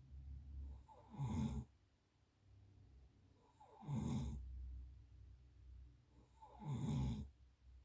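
A sleeping person snoring: three loud snores about three seconds apart, with quieter breathing between them.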